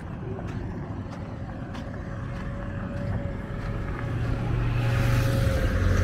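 A motor vehicle approaching, its engine hum and road noise growing louder over the last two seconds.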